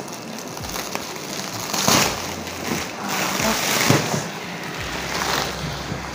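Clear plastic wrap crinkling and rustling as it is cut and pulled off a roll-packed foam mattress, in uneven surges of crackling, loudest about two seconds in and again near four and five seconds.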